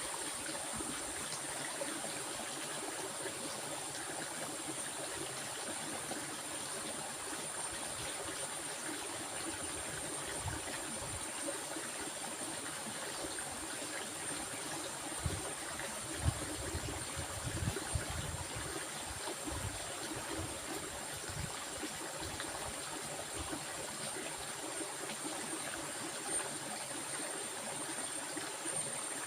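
A stream flowing steadily, water running and trickling, with a steady high-pitched tone above it and a few brief low thumps about halfway through.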